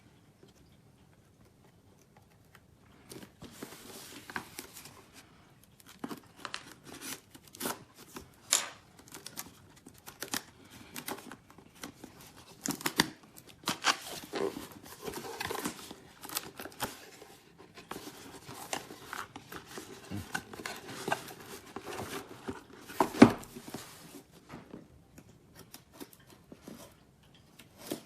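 Cardboard packaging being handled and opened, with irregular rustling, tearing and crinkling and scattered sharp clicks and knocks. It starts about three seconds in, and one loud knock comes about twenty-three seconds in.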